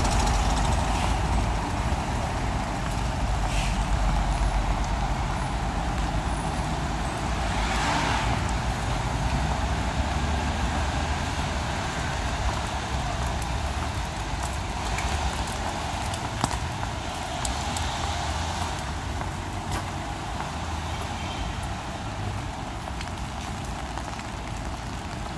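Street traffic on wet roads: a steady low engine rumble with tyre hiss, and a louder swell of hiss about eight seconds in.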